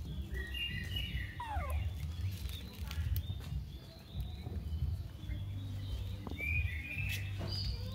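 Baby macaque giving thin, high calls that slide steeply downward, one near the start and another about six seconds in, over a low steady rumble.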